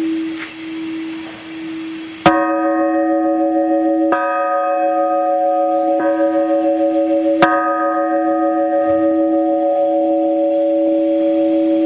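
Newly cast church bells struck for their acceptance check: a bell's hum rings on, then four strokes land about two seconds apart, the third one lighter. After each stroke the bell rings on long at several steady pitches.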